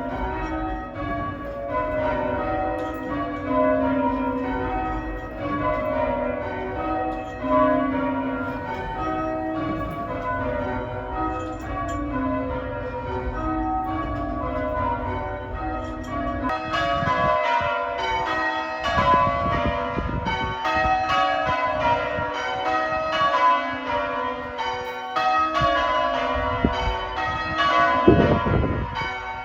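A ring of church tower bells rung full circle in change ringing, one bell after another in a steady, regular stream of overlapping strokes.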